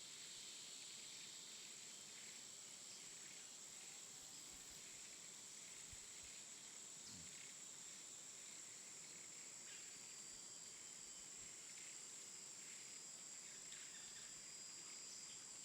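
Near silence: a faint, steady, high-pitched hiss.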